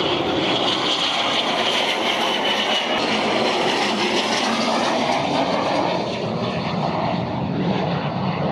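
Military jet aircraft flying a display pass: a steady engine noise with a high whine that falls slightly in pitch over the first few seconds and eases off after about six seconds.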